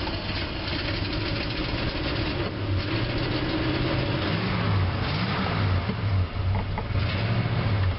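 Dodge 318 V8 engine with a two-barrel carburettor running just after being started, heard from inside the truck's cab. About halfway through, the engine speed rises and falls twice.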